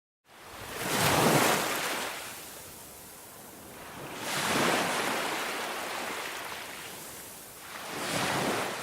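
Ocean waves washing in, three swells that each rise and fade away.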